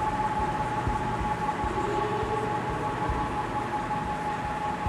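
Steady background hiss with a constant high-pitched whine running under it.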